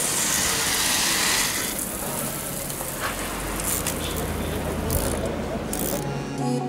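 Water spray from the rain-test sprinklers hissing steadily, cutting out a little under two seconds in. After that, a low hum with voices in the background and a few clicks.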